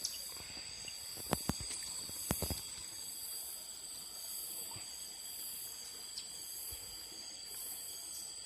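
Chorus of insects: a steady high buzzing with a higher pulsing call repeating about once a second. A few sharp clicks and knocks come about a second and a half in and again about two and a half seconds in.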